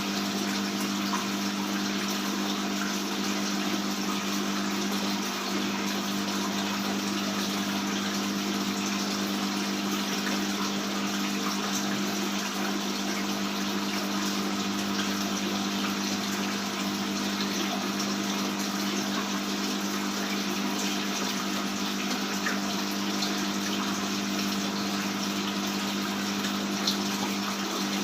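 Aquarium pump and filter running: steady splashing water over a low, constant hum.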